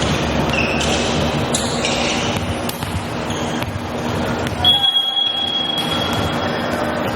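Volleyball match crowd and court noise echoing in a large gym: chatter and general din with a few short squeaks, and a thin steady high tone held for about two seconds just past the middle.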